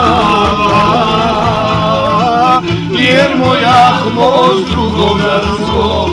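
A man singing a Bosnian sevdalinka in a slow, heavily ornamented melody with wide vibrato, over a low steady hum.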